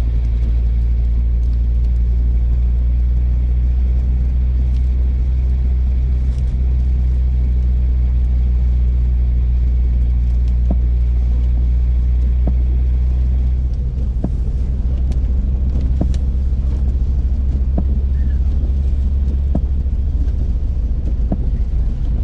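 BMW 320 touring heard from inside the cabin, driving in snow: a steady low engine and road drone. About 14 seconds in the note drops and turns rougher, with scattered light knocks.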